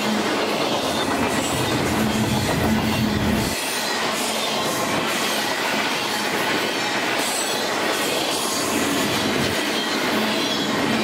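Double-stack intermodal container train's well cars rolling past at speed: a loud, steady rush of steel wheels on rail with rattling and clatter, and a few faint high squeals partway through.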